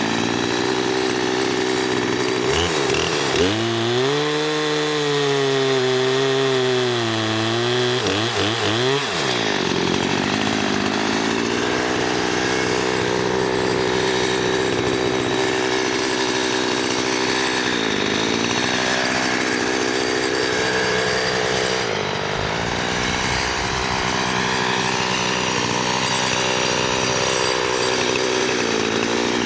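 Chainsaw running and cutting through tree wood, its engine pitch dropping as the chain bogs down under load in the cut and climbing back as it frees. The longest dip comes between about three and eight seconds in, with shorter ones later.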